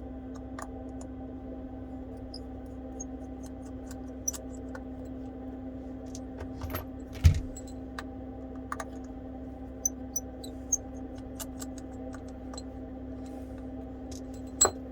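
Small scattered clicks and taps of a precision screwdriver and small metal parts as the bottom screws of an iPhone 11 Pro are removed, with one louder knock about 7 seconds in, over a steady low hum.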